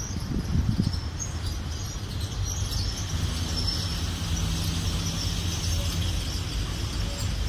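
Freight train of tank cars behind a VL11M electric locomotive rolling past: a steady low rumble of wheels on rail. A faint low hum joins for a few seconds in the middle.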